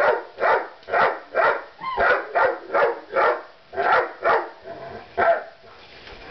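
A dog barking over and over, about two barks a second, stopping near the end.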